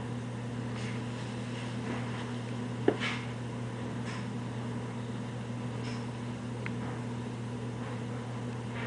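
Steady low hum of room tone, with one short sharp click about three seconds in.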